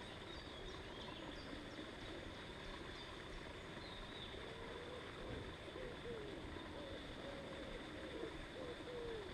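Quiet outdoor ambience with a faint steady hiss, small birds chirping high and thin in the first half, and from about halfway a pigeon cooing in a run of low, repeated phrases.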